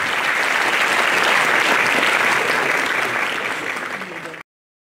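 Audience applauding at the close of a speech; the applause cuts off suddenly near the end.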